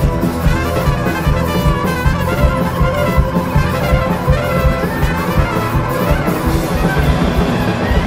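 Live band playing an instrumental passage, a trumpet carrying the melody over acoustic guitar and drums.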